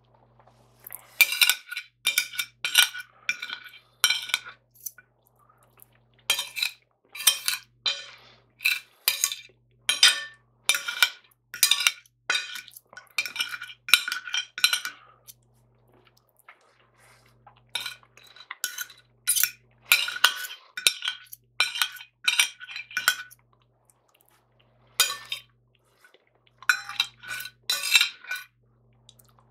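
Metal knife and fork scraping and tapping against a white china plate as the last baked beans are pushed up, the plate ringing at each tap. The taps come in several quick runs separated by brief pauses.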